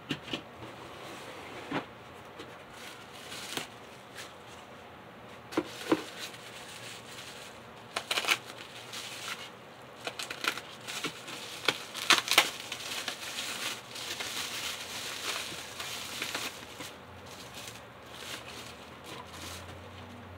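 Bubble wrap crinkling and rustling as a packed item is unwrapped by hand, with scattered sharp crackles and taps, the loudest about 8 and 12 seconds in.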